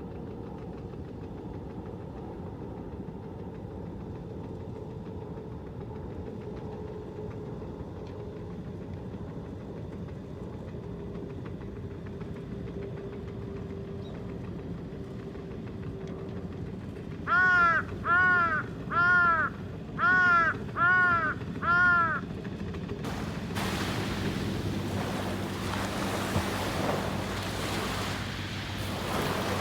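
A crow cawing six times in quick succession, loud and evenly spaced, over a low steady rumble. A few seconds later the rush of surf and wind on the microphone rises and carries on.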